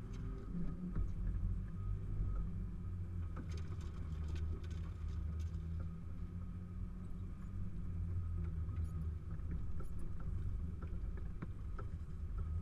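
Off-road 4x4's engine running at low revs as the vehicle crawls over rough forest ground, heard from inside the cabin, with scattered knocks and rattles from the body and the track.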